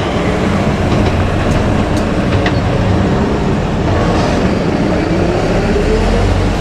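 JR Kyushu electric train running past close by, a steady loud rumble of wheels on rail; about four seconds in, a motor whine rises in pitch as the train gathers speed.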